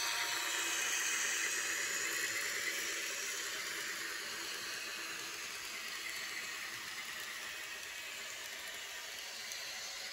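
An N-gauge model train passing: the Fleischmann M62 diesel locomotive's sound-decoder engine note fades out in the first couple of seconds as it goes by. A steady hiss from the coaches running along the track follows and slowly fades.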